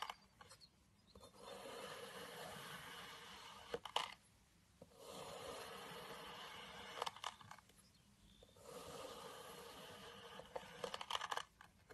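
A knife slicing through a block of kinetic sand, three slow gritty scraping strokes each a couple of seconds long, each ending in a sharp tap as the blade meets the wooden board.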